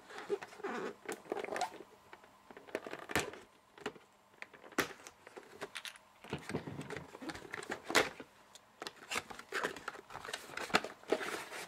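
A small cardboard processor box being cut open and its flaps pulled back: irregular clicks, scrapes and crinkling of card and paper, with a few sharper clicks.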